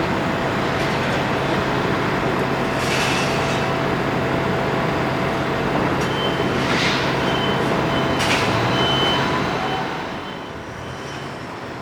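A heavy diesel vehicle engine running steadily with a low hum, with three short hisses of air. The sound drops off about ten seconds in.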